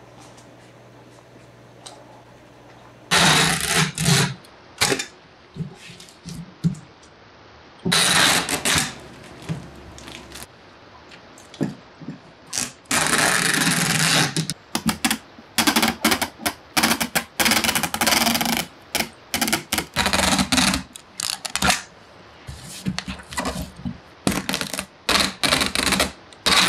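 Packing tape being pulled off a hand-held tape gun to tape up a cardboard box: loud ripping, first in a few long pulls of about a second each, then in many short, quick rips. Faint room tone for the first few seconds before the taping starts.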